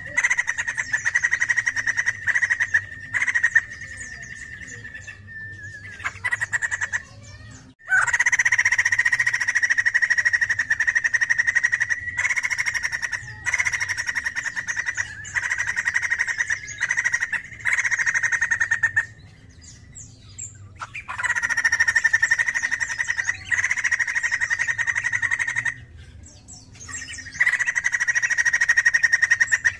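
White-crested laughingthrush singing in long bouts of rapid, chattering notes, each bout lasting several seconds with short pauses between.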